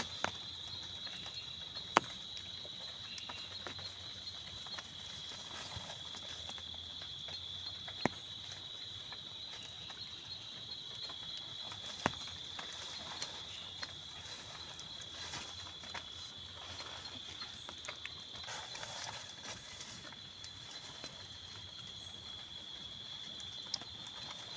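A steady high-pitched insect trill, with a few sharp knocks or clicks at irregular intervals, the loudest about two seconds and eight seconds in.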